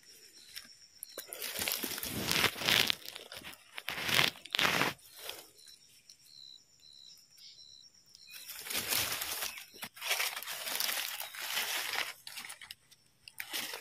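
Dry leaf litter crackling and rustling under gloved hands, with a knife scraping and cutting the stem bases of freshly picked mushrooms. The sounds come in irregular bursts, with a quieter pause in the middle.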